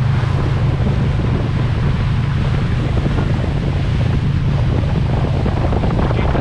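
Motorboat engine running with a steady low hum, under wind buffeting the microphone and rushing water.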